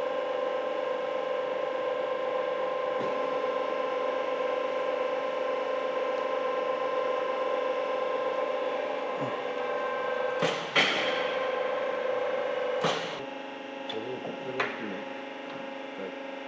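Ragache CP 70 section bender's roller drive running with a steady mechanical hum. A few sharp clicks come around ten to thirteen seconds in, then the sound drops to a fainter hum with light knocks.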